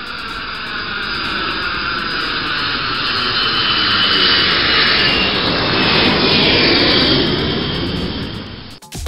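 Twin-engine jet airliner on landing approach, passing low overhead. The jet engine noise swells to a peak midway, and the engine whine falls in pitch as it goes over. The sound then fades and cuts off near the end.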